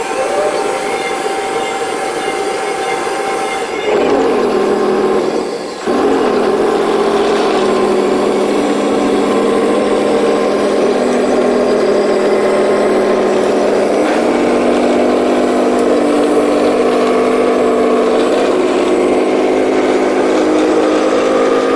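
Simulated tank engine sound from the Heng Long Panther G RC tank's sound unit, a steady engine drone from its small speaker. It shifts pitch a few times and briefly drops out about six seconds in.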